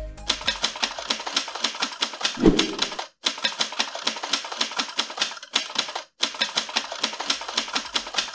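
Typewriter keys clacking in a quick, even run of about eight strikes a second, keeping time with text being typed out. A heavier low thud comes about two and a half seconds in, and the run stops briefly twice.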